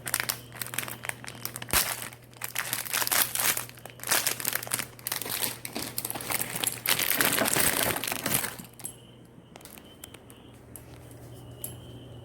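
Plastic wrapper of an instant spicy noodle pack crinkling as it is handled and opened, with dense irregular crackles that stop about nine seconds in, leaving only a faint steady hum.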